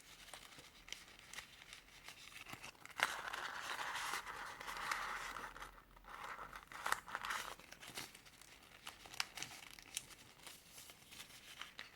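Folded sheets of colored origami paper rustling and crinkling as folded units are pushed into one another. A sharp crackle about three seconds in opens a louder stretch of paper sliding that lasts to about seven seconds, with light paper clicks throughout.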